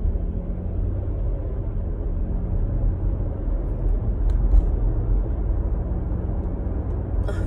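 Steady low rumble of a car being driven, heard from inside the cabin: engine and road noise, with a couple of faint clicks about halfway through.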